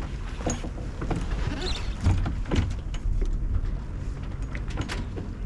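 Sailing yacht under way: a steady low rumble of wind and water, broken by a handful of short sharp knocks and clicks from the boat.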